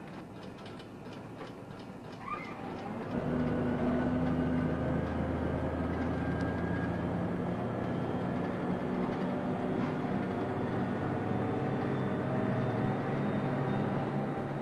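A vehicle's engine or motor running steadily with a low hum. It swells in suddenly about three seconds in, after a few faint clicks, and holds to the end.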